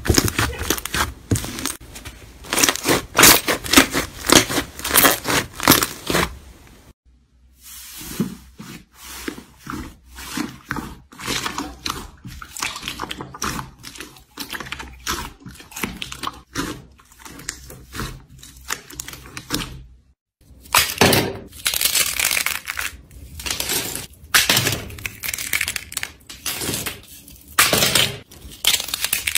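Hands squeezing and kneading slime, a dense run of crackling, popping clicks. The sound breaks off briefly about 7 and 20 seconds in, and the last part is the crunch of a brittle blue shell of slime being crushed in a fist.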